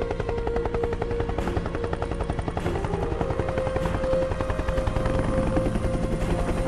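Helicopter rotor beating in a fast, even chop, with a steady held tone over it that shifts pitch about three seconds in.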